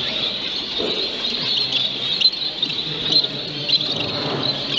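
Many caged show finches, zebra finches and Bengalese finches, calling at once: a dense, continuous chatter of short high chirps.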